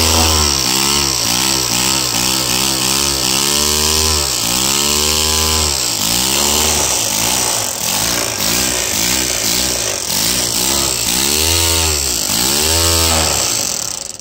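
Lego Technic pneumatic-cylinder air engine running on compressed air at about 80 PSI, with a hiss of air. Its speed and pitch rise and fall again and again, sometimes in slow swells and sometimes in quick ones, as the air gun is worked. It stops suddenly at the very end.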